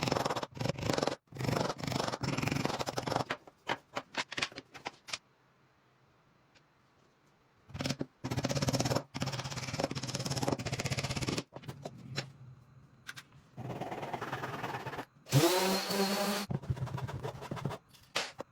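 Hand work on wood: runs of rough scraping strokes, stopping twice for a second or two, with a brief rising squeak about fifteen seconds in.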